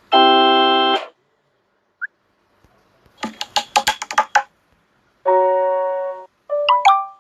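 Samsung Galaxy Note8 notification tones played one after another: a held electronic chord about a second long, a faint blip, a quick run of short sharp notes, a held tone, then a few short notes stepping up in pitch.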